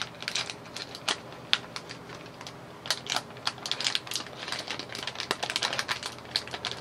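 Snack packaging crinkling and clicking as the snacks are pushed back into their package: a quick, irregular run of small clicks and rustles, busiest in the second half.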